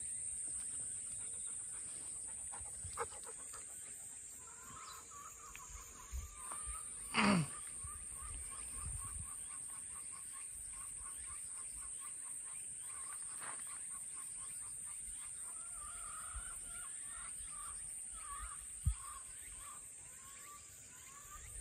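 Summer countryside ambience: a steady high-pitched insect drone throughout, with a quick run of repeated chirping calls from about four seconds in. About seven seconds in comes the loudest sound, a single call that drops sharply in pitch.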